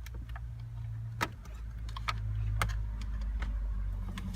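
Scattered light plastic clicks and taps as the BMW F10's dashboard display screen and its unplugged connectors are handled, with one sharper click about a second in, over a low steady hum.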